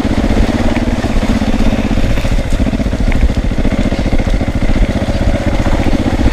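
KTM 450 EXC's single-cylinder four-stroke engine running at low revs, a steady pulse of exhaust beats as the bike is ridden slowly.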